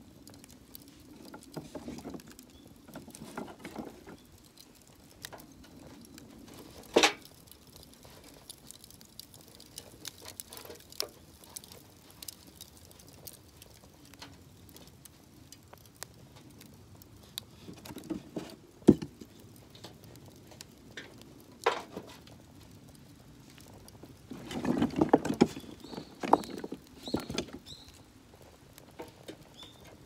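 Thin wooden kindling sticks being handled and leaned into a tepee on the coals of a metal barbecue grill: scattered light scrapes and knocks of wood on wood and on the grill, with a few sharp clacks and a busier run of knocking about three-quarters of the way through.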